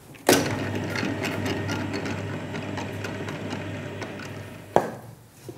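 Commercial planetary dough mixer starting with a sharp clunk, then running at fast speed with a steady low hum and the clatter of its gears as it kneads the dough. It cuts off with a sharp click near the end.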